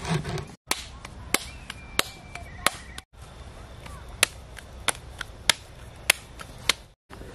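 Tandoori roti dough being slapped from palm to palm to flatten it by hand: a run of sharp, even slaps, about one and a half a second, with the sound cutting out briefly twice.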